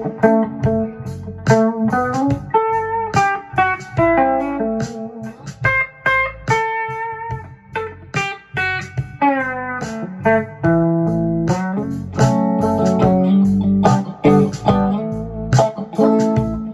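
1976 Travis Bean electric guitar played through the Boostron II's Mu-Drive boost preamp into a 1964 Fender Vibroverb tube amp: bluesy single-note lines and chords, with a group of notes sliding down in pitch about nine seconds in.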